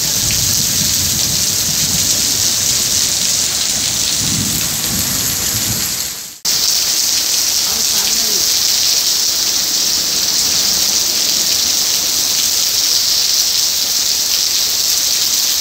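Heavy monsoon rain pouring steadily, with a low rumble of thunder through the first half. The sound drops out for a moment about six seconds in, at a cut in the footage, then the rain carries on evenly.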